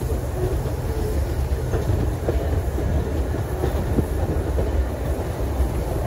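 Steady rumble and rattle of a moving vintage wooden passenger carriage, heard through its open window, with the wheels clicking over rail joints a couple of times.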